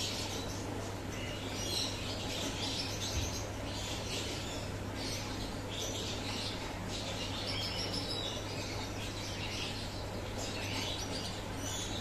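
Small birds chirping and twittering in quick, overlapping calls, over a steady low hum.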